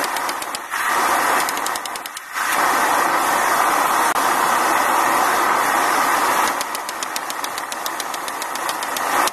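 Steady rushing noise from a homemade forge heating the blade, loudest through the middle. A rapid run of hammer strikes on steel on the anvil comes at the start and again in the last few seconds.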